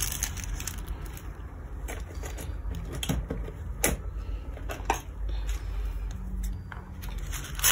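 Thin pink paper sheet being handled and pressed flat by hand: soft rustling with a few light crinkles and ticks scattered through, over a low steady hum.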